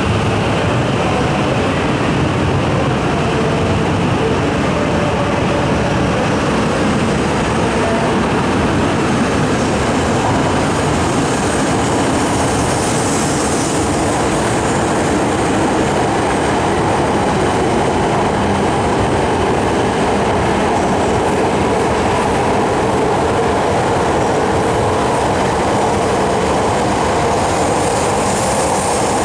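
Coupled H5-series and E6-series Shinkansen trains pulling out of a station, a steady loud rush of wheel and rail noise as the cars run past, with a faint motor whine in the first several seconds.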